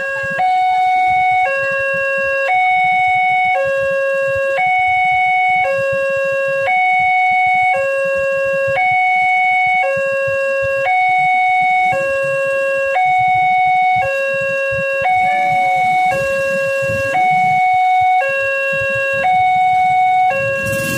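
Railway level-crossing warning alarm sounding a steady two-tone signal, switching between a lower and a higher tone about once a second. It means a train is approaching and the crossing barriers are down.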